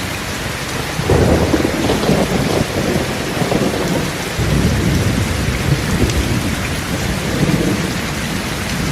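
Heavy rain pouring steadily, with a deep rumble that swells suddenly about a second in and rises and falls after that.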